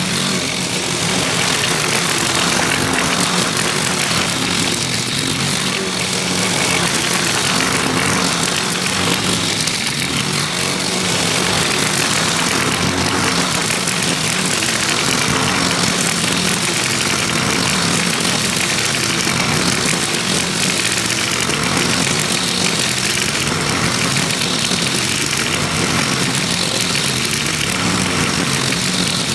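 Gas lawn mower engine running steadily under load while cutting grass.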